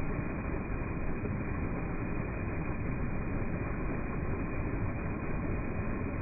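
Heavy flow of muddy water pouring over a ledge and crashing into a frothing pool below: a steady, unbroken rushing noise, heaviest in the low end.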